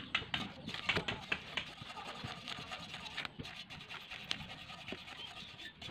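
A hand brush scrubbing the rusty, worn paint of a steel motorcycle muffler, in a run of quick, uneven scratching strokes, as surface preparation before repainting.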